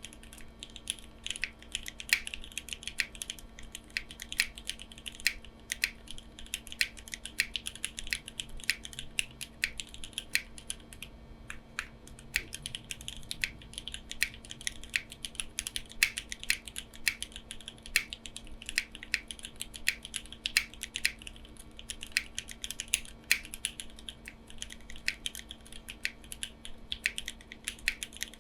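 Continuous typing on a Neo65 custom mechanical keyboard with lubed and filmed Milky Yellow linear switches, tuned Cherry clip-in stabilizers and CMK Jamon keycaps, built without case foam: a steady stream of key clacks, several a second, with a faint steady hum beneath.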